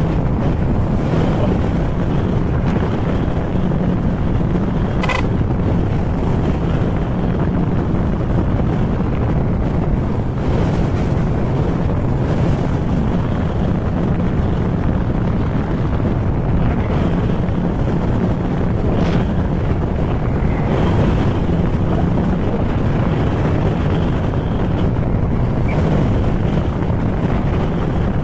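Heavy wind rushing over the camera's microphone while riding a Honda ADV160 scooter at speed, with the scooter's single-cylinder engine running steadily underneath.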